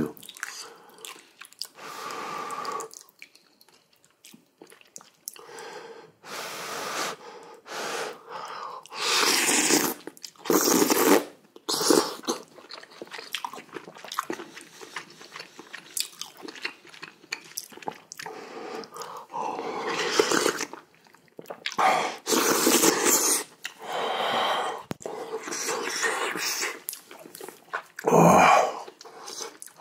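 Close-miked eating sounds: a person chewing and working mouthfuls of hot seaweed soup with rice, in irregular bursts every few seconds.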